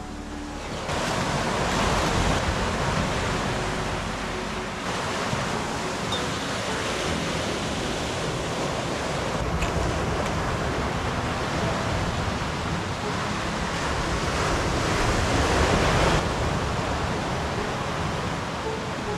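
Sea surf washing on a beach, a steady rush of breaking waves that swells louder about two seconds in and again later on.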